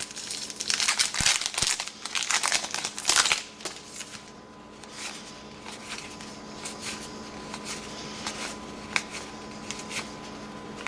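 Wrapper of a trading card pack crinkling as it is handled and opened for about three seconds, then quieter rustling with a few light taps as the cards are handled.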